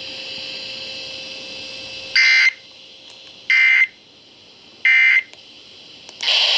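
EAS End-of-Message signal on a weather radio: three short data bursts, each about a third of a second and about a second apart, over steady radio hiss. They mark the end of the flash flood warning broadcast.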